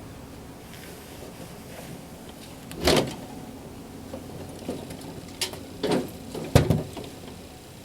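A few scattered knocks and clunks of objects being handled and set down, the loudest about two-thirds of the way through, over a low steady background.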